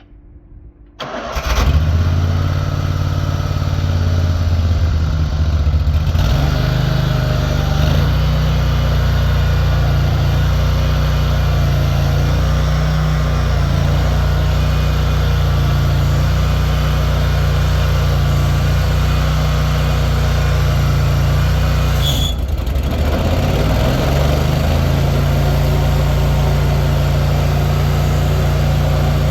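Stump grinder's Briggs & Stratton Vanguard 31 hp V-twin petrol engine starting about a second in, then running steadily. Its note dips briefly and shifts about three-quarters of the way through before settling again.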